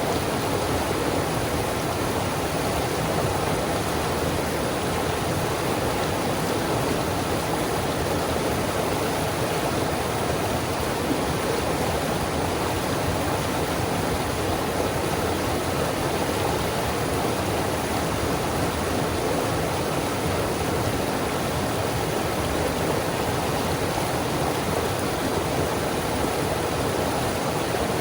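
Steady rushing of river rapids, a constant even roar of white water with no break or change.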